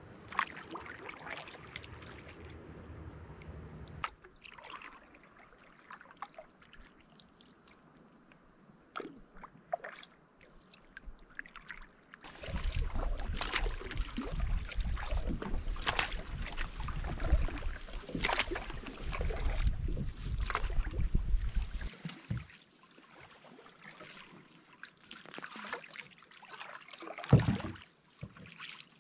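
Canoe on a shallow river: paddle strokes and water splashing, with sharp knocks and clatter against the hull. A steady high-pitched drone runs through the first part. In the middle, a louder stretch of low rumbling and knocking lasts several seconds.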